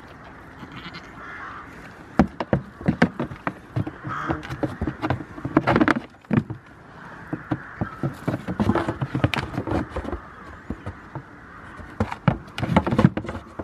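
Goats' hooves clattering and knocking on hollow upturned plastic tubs as they clamber and butt each other, in rapid clusters of sharp taps.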